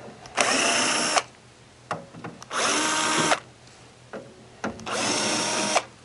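A power drill with a T20 Torx bit runs in three short bursts of about a second each, with a steady motor whine, backing screws out of a dehumidifier's sheet-metal cabinet.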